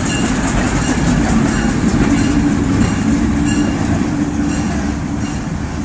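Diesel switcher locomotive rolling past at close range, its engine running with a steady hum over the rumble of the moving engine, easing off a little near the end as it moves on.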